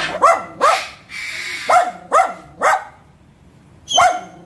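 Small dog barking in short, high, sharp barks: three quick barks, then three more, a pause, and a single bark near the end.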